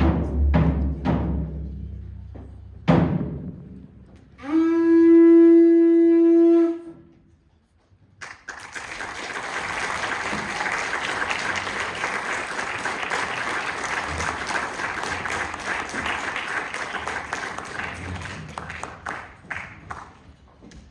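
Concert band ending a piece: a few timpani strokes, then one held wind-instrument note of about two seconds. Audience applause then starts suddenly and fades out over about ten seconds.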